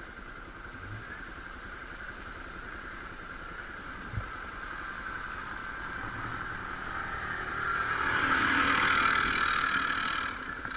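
Quad bike engine running steadily, growing louder from about seven seconds in and easing off near the end, with a single knock about four seconds in.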